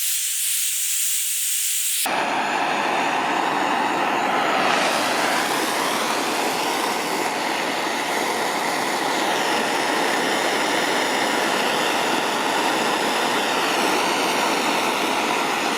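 Propane torch flame hissing steadily while heating a copper pipe joint for soldering. For about the first two seconds there is only a thin high hiss; then the fuller flame noise comes in suddenly and holds steady.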